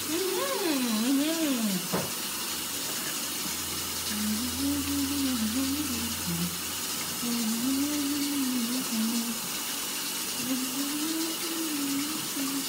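A woman hums a tune in three short phrases while brushing her teeth, over a steady hiss of running tap water. A higher voice swoops up and down in the first two seconds.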